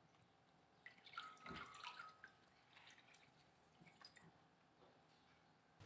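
Faint splashing and dripping as pickled mustard greens are lifted out of a bowl of soaking water, the loudest splashes about a second in, then scattered single drips falling back into the bowl.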